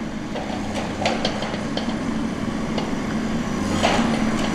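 Tigercat 234 knuckleboom log loader's diesel engine running steadily while its grapple works a bundle of pine logs onto a log truck, with several sharp knocks of logs, bunched in the first two seconds and again near the end.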